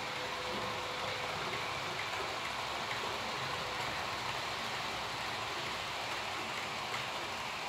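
H0 scale model train, a Talgo coach set behind a model electric locomotive, rolling along the track: a steady rushing noise of the wheels running on the rails, with a few faint clicks.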